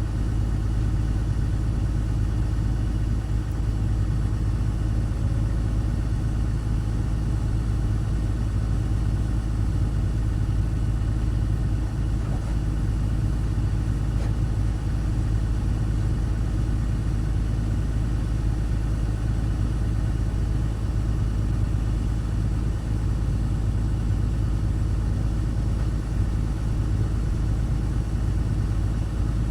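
Caterpillar excavator's diesel engine running steadily, a low even drone with no revving or changes in pitch.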